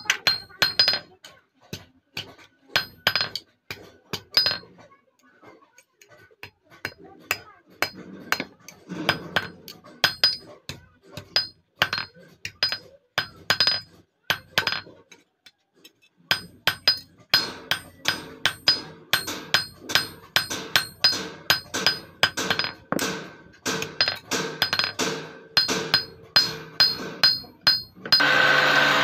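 Small hammer tapping a thin steel sickle blade cold on a steel anvil block: quick, ringing metal strikes about three a second, with a couple of short pauses. Near the end a steady angle-grinder whir cuts in.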